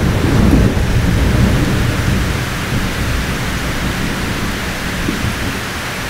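Thunder rumbling and slowly fading away under steady heavy rain.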